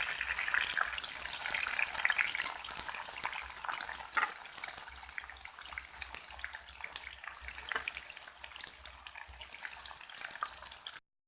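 Stuffed bamboo shoot pieces frying in oil in a pan: a steady sizzle full of fine crackles, slowly getting quieter, cut off suddenly near the end.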